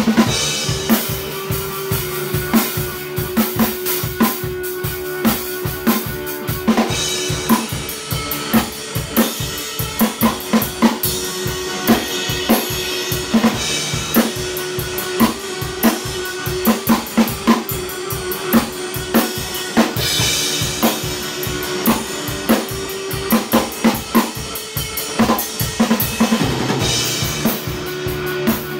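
Drum kit played in a fast, busy groove of kick drum, snare and cymbals, with an electric guitar playing along. The cymbals grow denser about a quarter of the way in.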